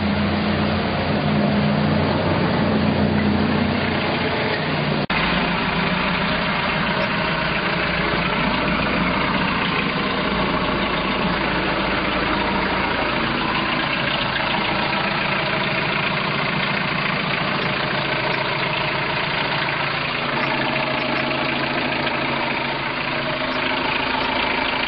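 MerCruiser 3.0-litre four-cylinder sterndrive engine idling steadily, its sound changing abruptly about five seconds in.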